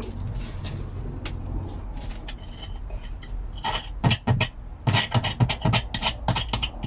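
Disc piezo pickup plugged into a small test amplifier: low amp hum with a few plugging clicks, then, from about four seconds in, a fast, irregular run of amplified thumps as the piezo is tapped, showing the no-solder wiring works.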